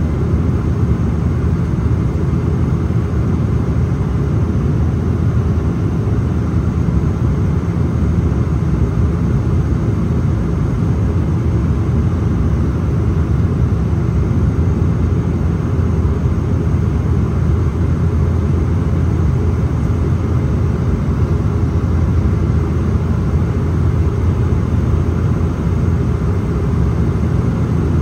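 Cabin noise of a Bombardier Dash 8 Q400 in descent to landing: its two Pratt & Whitney Canada PW150A turboprops give a steady, loud, low propeller drone, heard from inside the cabin.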